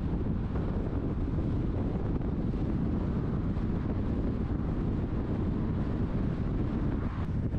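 Wind buffeting the camera microphone: a steady low, fluttering rumble with no engine note or voices in it.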